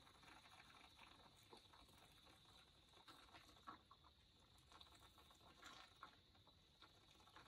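Faint, scattered small clicks and slurps of an elephant calf sucking milk from a bottle.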